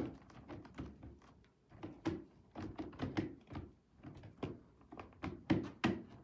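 Hard plastic brooder wall panels clicking and knocking as a section is lined up and pressed onto the pegs of the section below: a string of irregular taps and thunks, the loudest about two, three and five and a half seconds in.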